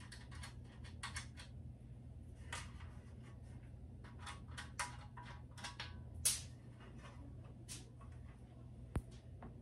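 Spider Farmer SF300 LED grow light being handled and turned around against a wire shelf: scattered clicks, taps and rubbing, the loudest knock about six seconds in and a sharp click near the end, over a steady low hum.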